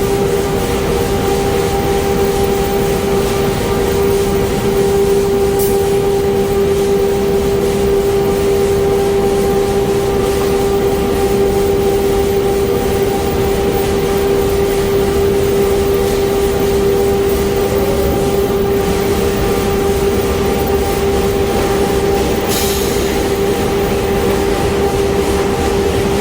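Corrugated cardboard automation line running: conveyor motors and machinery give a loud, steady hum with one constant tone. Two short hisses come through, about six seconds in and near the end.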